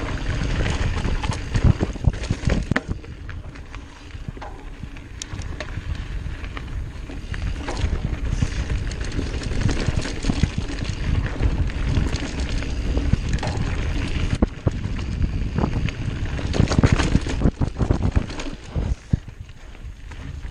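Mountain bike rolling down a dirt singletrack: a steady rumble of tyres on the trail, with frequent knocks and rattles from the bike over bumps, and wind buffeting the microphone.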